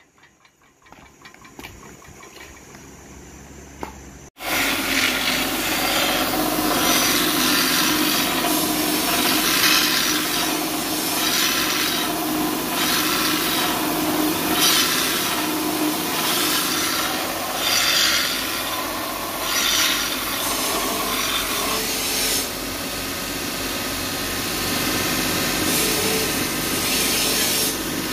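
A belt grinder grinding a steel cleaver blank held flat against the abrasive belt: a loud, continuous rasping hiss that swells and fades with each pass of the blade, over the steady run of the machine. It starts suddenly about four seconds in, after a quiet opening.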